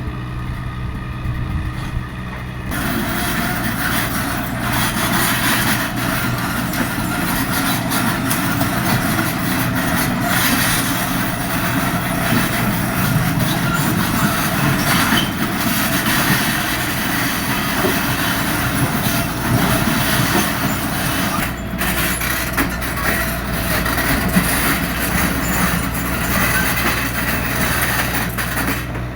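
Hydraulic excavator's diesel engine running steadily, with a louder, rough working noise joining about three seconds in as the machine works.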